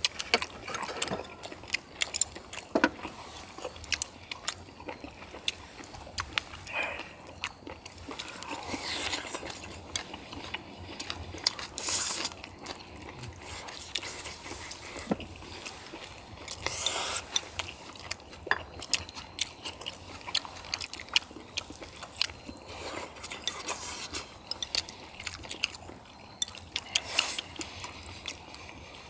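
Several people chewing and biting into braised spicy chicken and chewy baby octopus, with frequent small clicks of chopsticks against bowls and a few louder wet mouth sounds.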